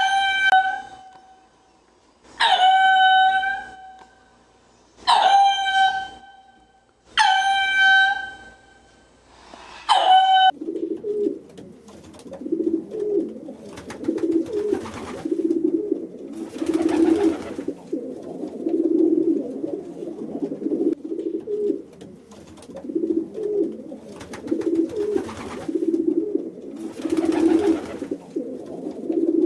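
Animal calls: five high, strongly pitched calls about two and a half seconds apart, then a low rhythmic cooing, like a pigeon's or dove's, that goes on to the end.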